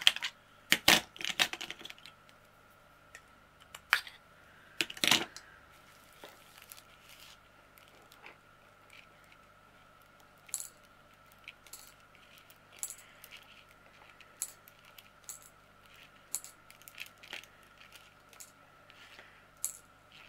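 Small resin diamond-painting drills rattling and clicking as they are tipped into the compartments of a plastic storage box, along with sharp plastic clicks. The clicks come in a cluster in the first two seconds and again around four and five seconds in, then thin out to sparse light ticks.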